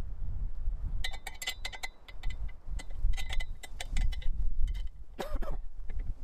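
Metal clicks and clinks from the clamps and brackets of an Alaskan chainsaw mill's aluminium frame as they are adjusted by hand to set the cutting depth. The clicks come in quick clusters about a second in and about three seconds in, with a brief wavering tone about five seconds in.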